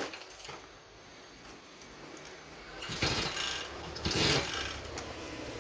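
Mechanical handling noises: a few clicks, then two rasping strokes about a second apart, followed by a low steady hum.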